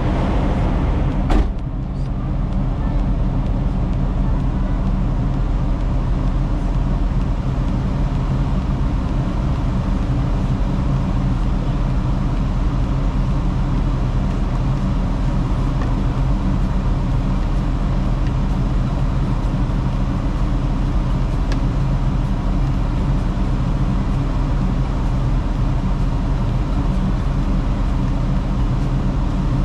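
Tractor-trailer's diesel engine and road noise at a steady cruise: a constant low drone that does not change, with one sharp click about a second in.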